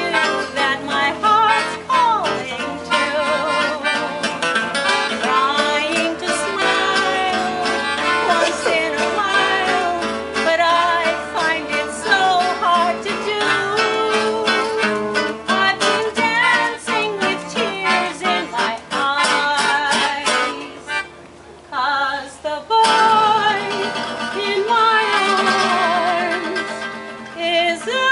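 A singer holding notes with vibrato over instrumental accompaniment. The music drops away briefly about three-quarters of the way through, then comes back in.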